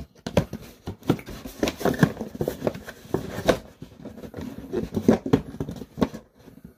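Close-up crunching and chewing of crispy soy garlic Korean fried chicken, an irregular run of crackly bites and chews that thins out near the end.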